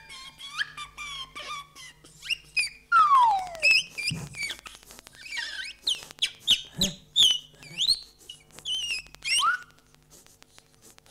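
Cartoon-style squeaks and gliding whistles voicing an animated mouse: quick high chirps, a long falling whistle about three seconds in, scattered clicks and a couple of low thuds.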